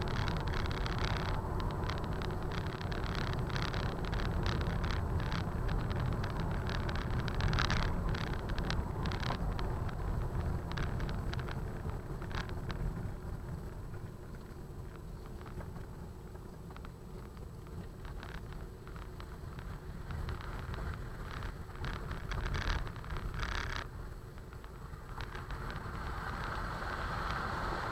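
Car driving slowly along a rough country lane, heard from inside the cabin: steady low engine and tyre rumble, with frequent small clicks and knocks over the first dozen seconds. It goes quieter in the middle, and a steady hiss comes in near the end.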